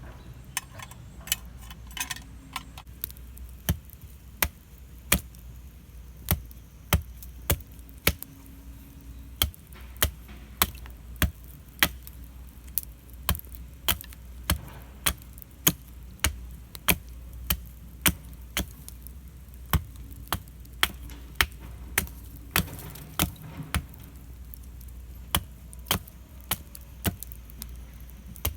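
Steady, regular chopping: a blade struck down again and again, about three sharp strikes every two seconds.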